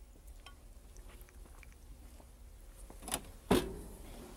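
A few faint clicks and handling sounds, then one sharp metal clunk about three and a half seconds in as the lower door of a wall oven is pulled down open.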